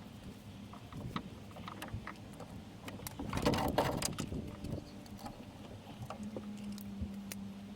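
Hands working a camera cable through a car's plastic trim: scattered clicks and knocks, with a louder rustling scrape about three seconds in. A steady low hum starts about six seconds in.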